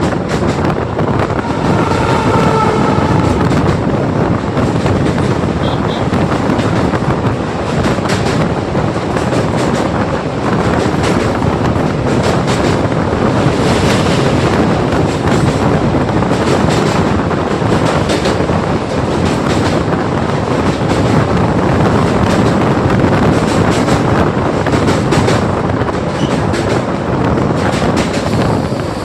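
MEMU electric train running over a bridge: a steady rumble of wheels on the rails with a continuous clickety-clack of wheel beats. A brief high tone sounds about two seconds in.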